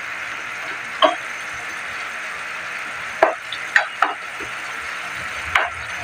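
A ladle stirring a simmering pan of pechay and sardines in broth, knocking against the pan about five times, over a steady hiss.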